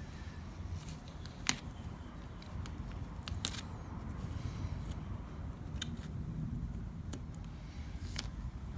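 Transfer tape being peeled slowly off a vinyl decal stuck on a car window, giving a few short, sharp crackles over a low steady rumble.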